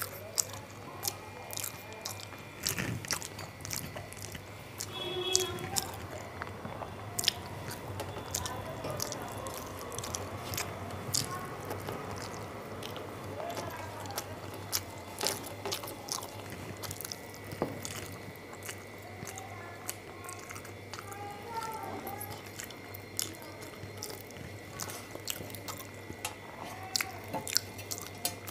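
Close-miked mouth sounds of a person eating rice and curry by hand: wet chewing, smacking and many short clicks, irregular throughout, over a steady low hum.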